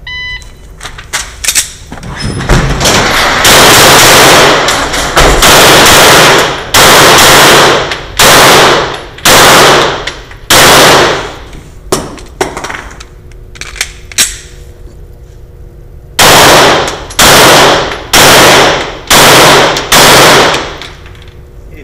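A shot-timer start beep, then a string of handgun shots, loud and echoing in an enclosed bay, running from about two seconds in to about eleven seconds. After a pause of several seconds with a few small clicks, five more shots follow at about one a second.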